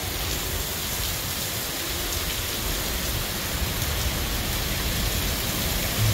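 Heavy thunderstorm rain pouring down in a steady, even hiss.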